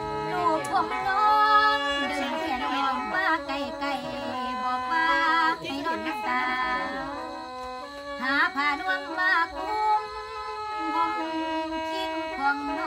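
A woman singing Isan lam in a wavering, ornamented voice over the steady held chords of a khaen, the bamboo mouth organ.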